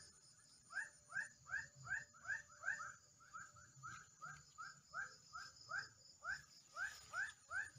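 An animal calling a fast series of short rising notes, about three a second, with a steady high-pitched drone behind it.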